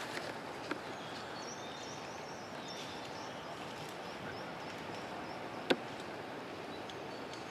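Outdoor background noise with a bird giving a run of short, high chirps, and one sharp click about three-quarters of the way through.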